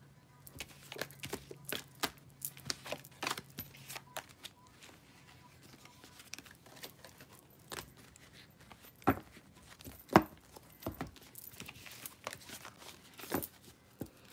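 Tarot cards being gathered up and handled on a table: a quick run of dry clicks and slides of card stock for the first few seconds, then scattered taps with a few sharper knocks in the second half.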